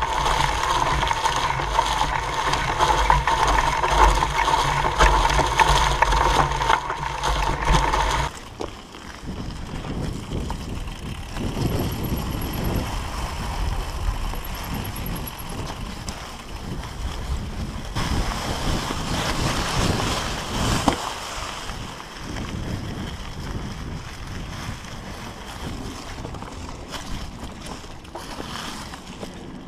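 Mountain bike riding over a dry, leaf-covered dirt trail. For about the first eight seconds a steady drivetrain and frame rattle dominates, heard through a camera mounted on the frame by the pedals; it then changes suddenly to quieter tyre rumble and leaf crunch with wind on the microphone.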